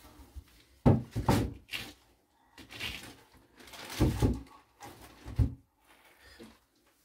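Household things being handled and set down in a small room: a string of separate knocks and thuds with some scraping, the loudest about a second in and again about five and a half seconds in.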